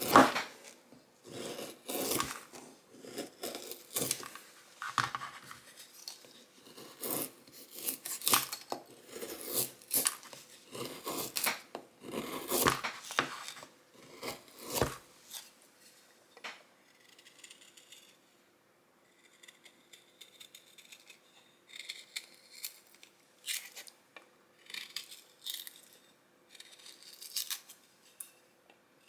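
BPS Bushmate carbon-steel bushcraft knife, freshly resharpened with a convex edge, cutting into wood in a series of short slicing strokes, roughly one every 0.7 s. The strokes are stronger over the first half and turn to fainter, lighter scrapes after a short pause.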